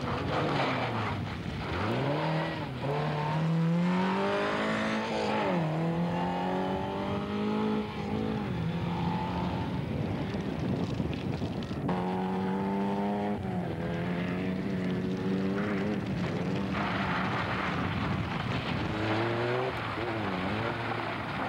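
Rally car engines revving hard on a loose gravel course, the pitch climbing and then dropping again and again through gear changes and lifts off the throttle.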